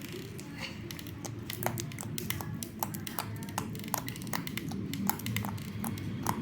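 Slime being worked by hand, giving a run of small irregular clicks and pops, several a second.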